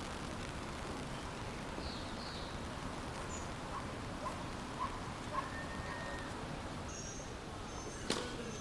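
Steady background murmur of an outdoor tennis crowd, with a few soft knocks around the middle, faint high chirps, and one sharp crack near the end.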